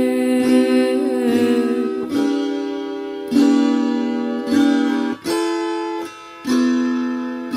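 Music: guitar notes plucked and left to ring, a new note or chord struck every second or so and fading away.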